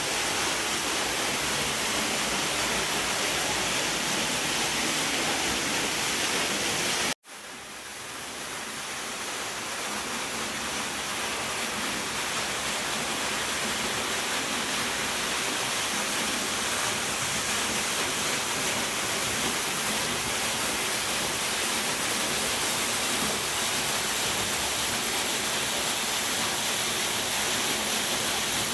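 Steady rushing of a 35-foot waterfall pouring into its pool. About seven seconds in it cuts out for an instant, then fades back up over a few seconds.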